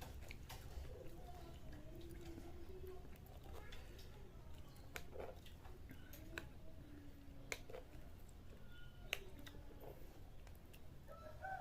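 Faint scattered clicks and scrapes of a utensil against a bowl of bakso as a meatball is cut open to show its minced-meat filling.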